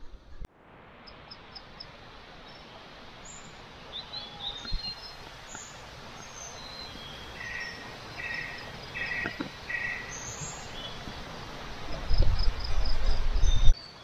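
Forest morning ambience: a stream running steadily, with birds chirping and insects calling over it. A low rumbling noise rises near the end.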